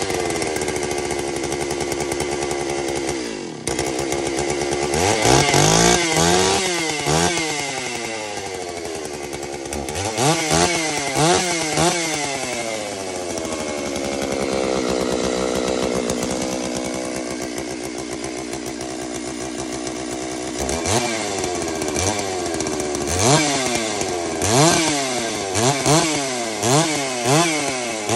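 Holzfforma G660 chainsaw, a Stihl 660 clone with a 92cc two-stroke engine, free-revving out of the cut: the throttle is blipped again and again and the revs fall back between blips, with a run of quick short revs near the end.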